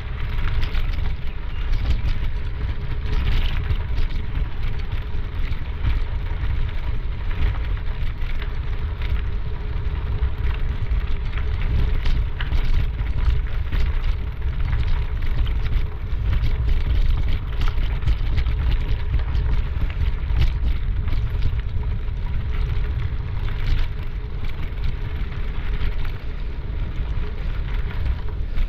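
Steady wind rumble on the microphone of a camera moving along a trail, with a light, continuous crackle over it.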